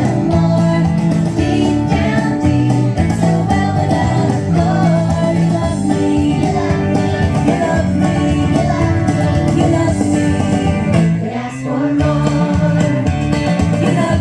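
Background music: a song with singing and instruments, running steadily with a brief dip about eleven seconds in.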